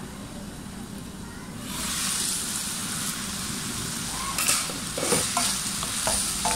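Minced chicken with onion and bell pepper sizzling in a frying pan, the hiss rising about two seconds in, while a wooden spatula stirs it with a few sharp scraping strokes near the end.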